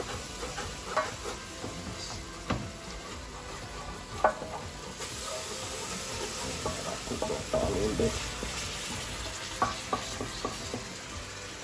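A wooden spoon stirring and scraping curry in a pan, with scattered light knocks against the pan, over a sizzle of the curry frying that grows stronger about halfway through.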